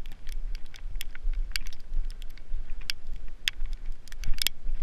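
Footsteps in rubber boots crunching through snow: irregular sharp crackles, several a second, with a low rumble underneath.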